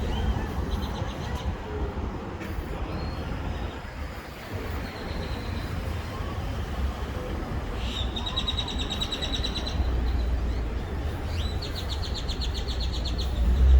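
A small bird singing a fast trill of evenly repeated high notes three times: a short faint one about a second in, then two longer trills in the second half. A steady low rumble runs underneath.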